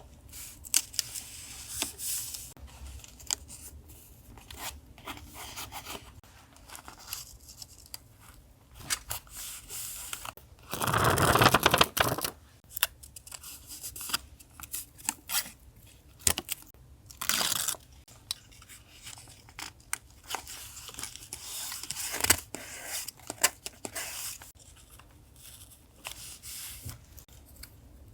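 Paper being handled for collage journaling: irregular rustling, small clicks and tearing. A louder burst of paper noise about eleven seconds in lasts about a second, and a shorter one comes about seventeen seconds in.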